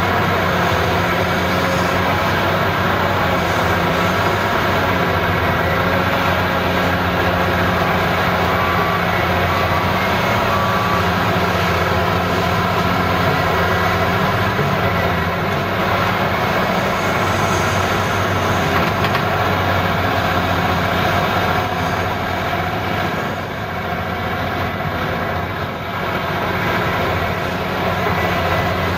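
Caterpillar 375 hydraulic excavator's diesel engine running steadily under load as it digs and swings to load a dump truck, easing off slightly near the end.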